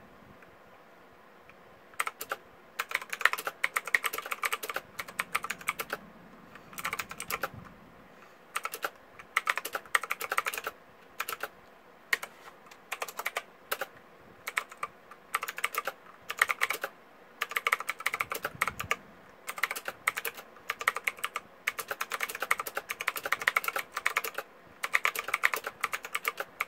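Typing on a Redragon K555 Indrah mechanical keyboard with off-brand switches: rapid runs of key clicks in bursts of a second or two, broken by short pauses.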